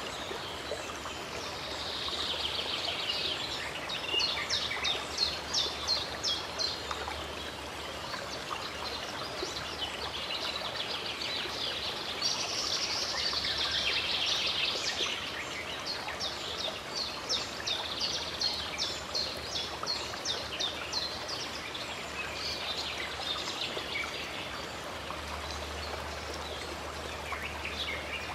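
Running water, a steady stream rushing, with songbirds singing over it: several runs of quick, repeated high chirps and a few warbled phrases.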